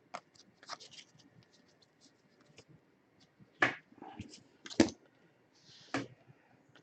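Hands handling trading cards and packs on a table: light scratching and sliding with scattered small clicks, and three sharper knocks about three and a half, five and six seconds in.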